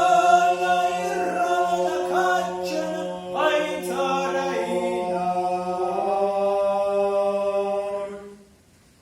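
Ossetian heroic folk song sung by a male ensemble: a low held drone runs beneath the melody line. The song's closing notes die away about eight seconds in.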